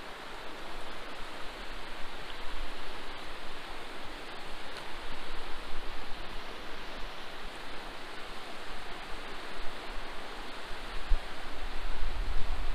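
Steady rushing of a stream below, an even wash of water noise. Wind rumbles on the microphone near the end.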